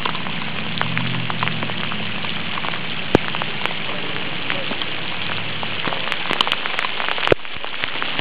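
Steady rain pattering on open water, dotted with sharper drop ticks, with two louder clicks about three seconds in and near the end.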